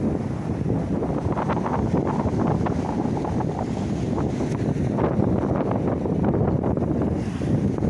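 Mediterranean sea waves washing and fizzing on the shore, with wind buffeting the microphone in a steady low rumble.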